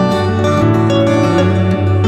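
Background music led by plucked guitar-like strings over a steady low bass note.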